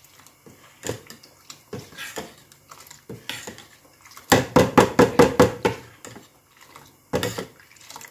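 Steel ladle clinking and scraping against a steel bowl while beating milk powder into warm milk, with a quick run of strokes about halfway through.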